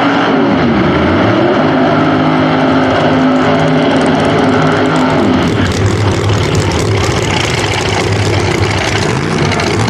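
Pro Nitrous doorslammer drag cars' big-block V8s held at high revs through burnouts, the pitch falling about half a second in and again around five seconds in, then running steady at a lower pitch.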